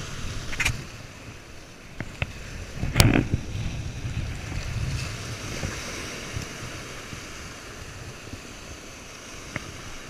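Strong wind rumbling on the microphone over waves breaking and washing at the water's edge, with a few light ticks and one loud sharp knock about three seconds in.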